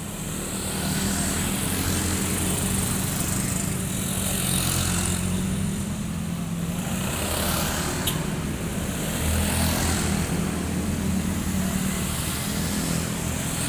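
Toyota Avanza 1.3-litre four-cylinder engine running through an aftermarket exhaust: a 4-1 monel header, flex pipe and straight pipe in place of the stock muffler box, ending in a rear muffler. A steady, low exhaust note picks up about a second in and swells slightly a few times.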